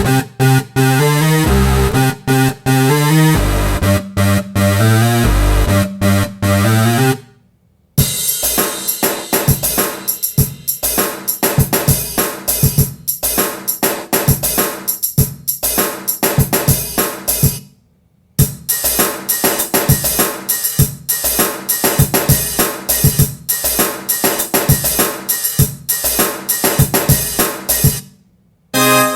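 Short R&B music loops played one after another, separated by brief silences: first a groove with a deep stepping bass line over drums, then two drum-kit beats with hi-hat, cymbals and snare.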